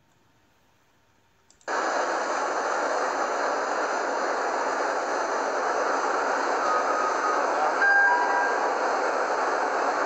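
Electric arc furnace in operation: a dense, steady noise that cuts in suddenly after near silence, less than two seconds in.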